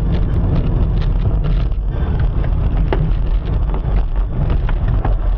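Steady low road and engine rumble of a moving car heard from inside the cabin, with a few faint ticks.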